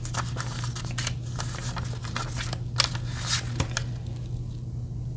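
Thin vellum paper stickers rustling and ticking as a handful is shuffled through and single sheets are laid down on paper. The short, irregular rustles thin out near the end, over a steady low hum.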